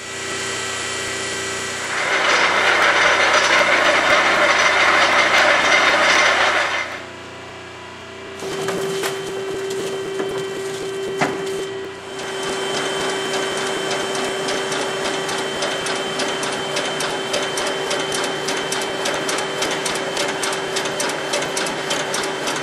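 Farm implement driven by the Shop Dog's hydrostatic PTO, running in the shop. A loud rushing mechanical noise rises about two seconds in and falls away about five seconds later. From about eight seconds a steady hum carries a rapid, even clatter of the hay header's moving reel and drive.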